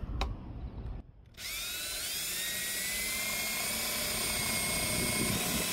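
RIDGID 18V cordless drill boring a hole through plywood with a spade bit. About a second and a half in, the motor whine rises as it spins up, then runs steadily.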